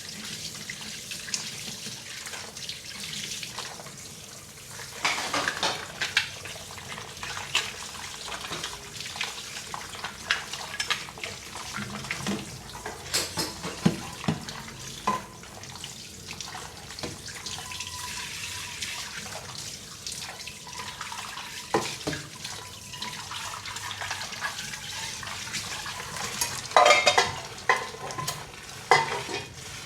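Dishes being washed by hand at a sink under a running tap: a steady flow of water with scattered clinks and knocks of dishes, the loudest cluster near the end.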